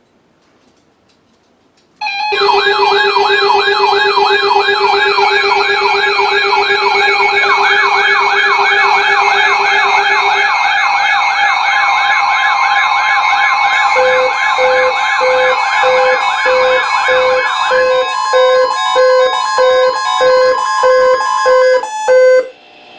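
Loud layered electronic alert tones: fast, repeating siren-like warbles over steady tones, joined about two-thirds of the way through by a steady beeping, all starting suddenly and cutting off together.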